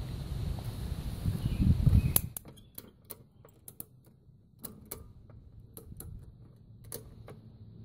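Ratcheting tie-down strap being cranked tight, its pawl clicking sharply in small irregular clusters as the strap pulls the spring-tensioned mower deck back. A low rumble runs for about the first two seconds, and the clicks start around then.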